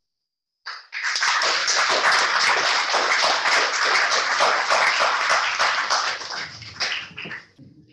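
Congregation applauding, starting about a second in and dying away near the end.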